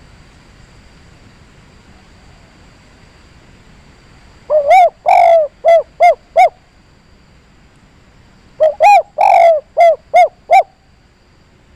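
Caged dove cooing twice in its 'kuk 3' pattern, the call prized for provoking a rival bird. Each phrase is a longer coo followed by three short, quick 'kuk' notes.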